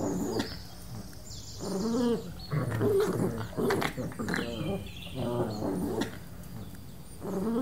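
Repeated short animal calls, pitched and wavering, coming in several separate bouts.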